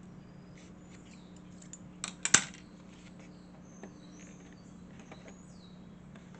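Light workshop handling noise: a quick cluster of three sharp clicks about two seconds in, with scattered faint ticks, over a steady low hum. Faint high chirps come and go in the background.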